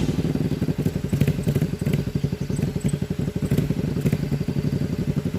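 Chopper motorcycle engine idling, its exhaust giving a steady, rapid, even run of pulses.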